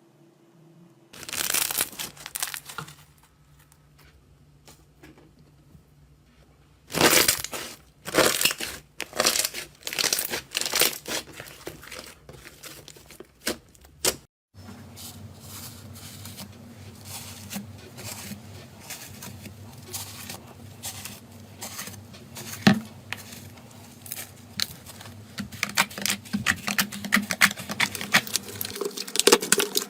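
Slime being worked by hand, making crackling, clicking pops in bursts. After a cut about 14 seconds in, the crackling runs on more steadily over a low hum.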